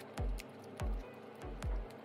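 Background music with a steady electronic beat, a deep kick drum thumping about every two-thirds of a second.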